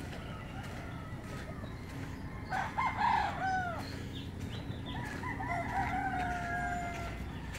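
Roosters crowing: one crow about two and a half seconds in, and a longer one from about five seconds in that trails off on a drawn-out falling note.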